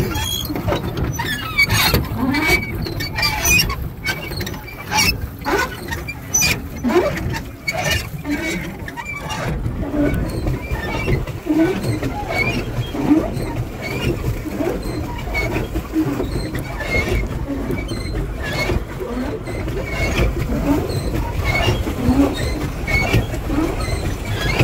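Pedal boat's pedal drive squeaking and creaking in a steady rhythm, about once a second as it is pedalled, over a low rumble. Several sharp clicks come in the first few seconds.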